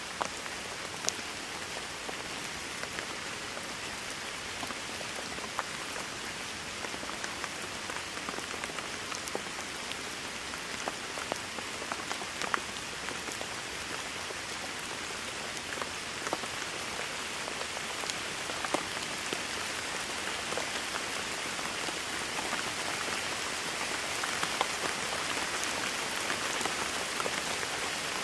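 Steady rain falling, an even hiss with scattered sharper drop hits, growing slightly heavier near the end.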